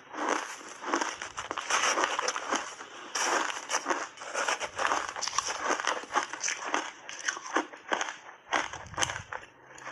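Refrozen shaved ice being bitten and chewed close to the microphone: a rapid, irregular run of crisp crunches.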